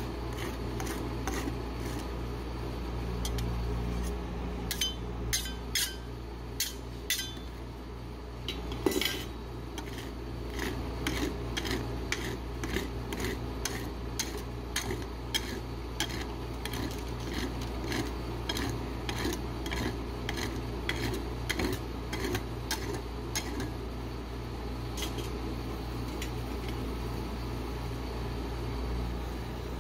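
Metal spatula tapping and scraping on a stainless steel cold plate, smoothing out a frozen layer of rolled ice cream base, with a sharp tap every second or so over a steady low hum. The taps thin out near the end.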